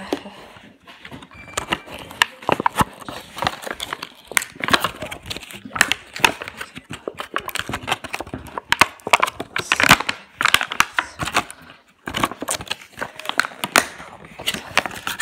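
A clear plastic blister pack and its card backing crinkling and crackling in the hands as a toy package is handled and pulled apart, in a run of irregular sharp crackles.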